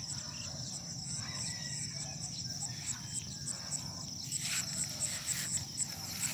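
Insects calling in the grass: a steady high-pitched trill, with another insect chirping over it about three to four times a second.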